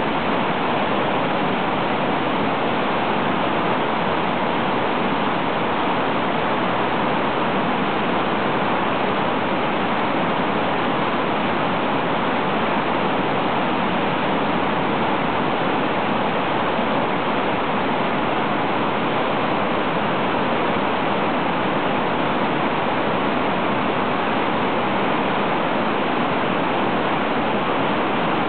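Swollen, raging river whitewater churning over a rock slide into its pool, a loud steady rush of water.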